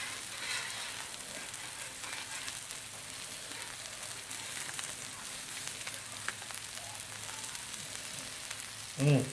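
Salmon fillets sizzling on a Blackstone flat-top griddle: a steady frying hiss with scattered small crackles. A short voice cuts in near the end.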